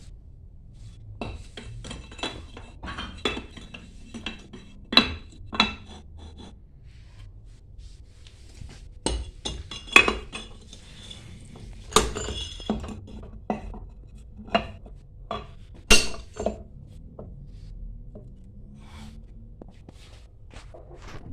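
Metal pump parts and hand tools clinking and knocking against each other in an irregular series of sharp strikes, some with a short metallic ring, during work on a booster pump.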